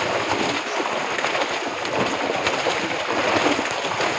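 Many fish thrashing in a drag net as it is hauled through shallow water: a dense, continuous splashing without pause.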